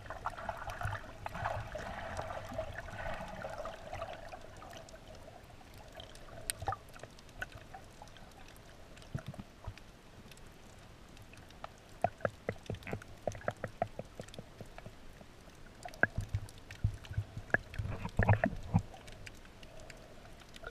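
Muffled water heard from underwater: bubbling and sloshing for the first few seconds, then runs of sharp clicks and knocks through the second half.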